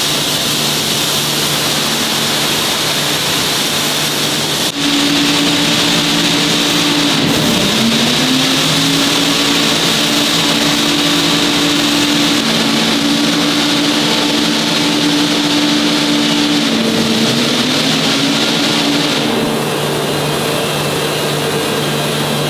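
Heavy ring rolling mill running as it rolls a red-hot forged steel shell: a steady loud machine drone with a hum of several tones, one of which dips and climbs back in pitch about seven seconds in.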